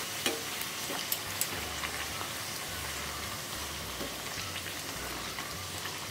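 A puri deep-frying in hot oil in a steel kadai: a steady sizzle with a few sharp crackles in the first second and a half.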